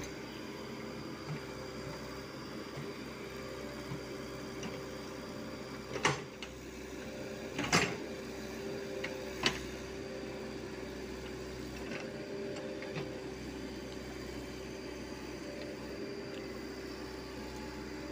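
Komatsu PC75UU mini excavator's diesel engine running at a steady hum while it digs. A few sharp clanks from the bucket in stony ground break in about six, eight and nine and a half seconds in, the one near eight seconds loudest.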